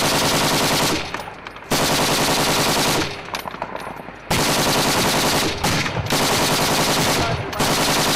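Automatic machine-gun fire in long sustained bursts, about five of them, broken by short pauses of under a second to about a second.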